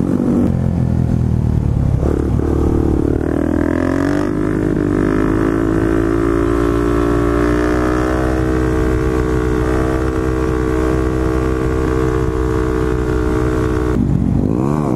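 Motorcycle engine under way: it picks up revs about two to four seconds in, holds a steady speed for most of the time, then the revs drop and rise again near the end.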